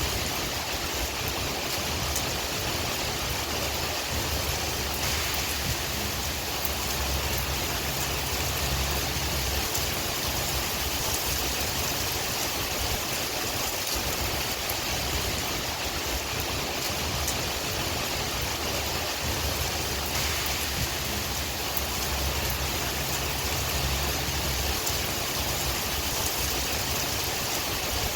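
Steady rain with wind: an even hiss of rainfall dotted with fine drop ticks, and a low rumble of wind that swells twice.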